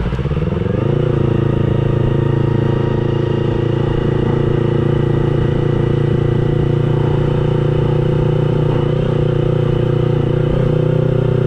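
Yamaha R25's 250 cc parallel-twin engine rising in revs during the first second, then held at steady revs while the motorcycle cruises.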